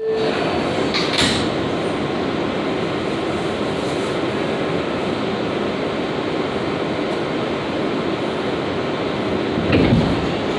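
R142A subway train running on the rails: a steady rumble with a short clatter about a second in and a heavier clunk near the end.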